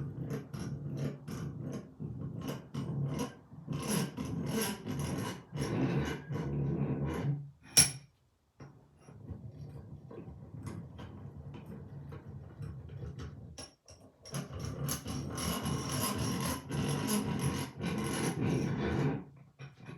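Rebuilt 1950s Craftsman 3.5-inch bench vise being cranked open and closed: the lead screw and sliding jaw rub and tick in runs. There is one sharp click a little before halfway, a quieter stretch, then another run of cranking until near the end.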